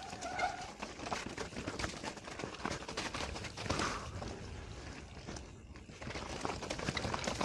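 Mountain bike riding down a rocky, muddy trail: a constant clatter of small knocks and rattles from the tyres, chain and frame over the rocks, heard through a microphone inside a full-face helmet.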